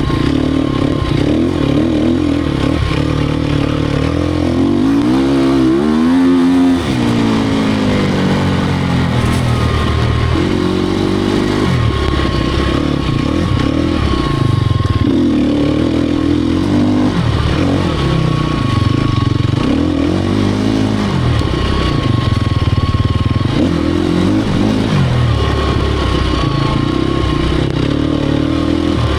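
Sherco 250 SEF Factory's single-cylinder four-stroke engine revving up and down over and over under hard riding, its pitch rising and falling every second or two, with one long climb and drop about six seconds in.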